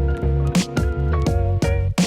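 Background music with a steady beat: held notes over a bass line.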